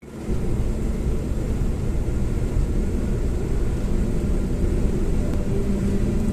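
Iveco truck cruising on a motorway, heard from inside the cab: a steady low rumble of engine and road noise.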